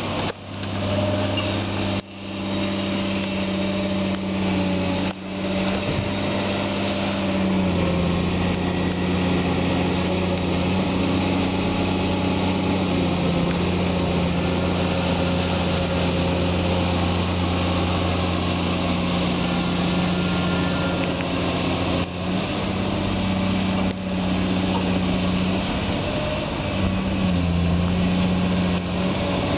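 Diesel engine of a CAT 345 long reach excavator running steadily under working load while it digs slurry. Its note dips lower about eight seconds in and shifts a few more times later, with sudden brief drops in loudness in the first few seconds.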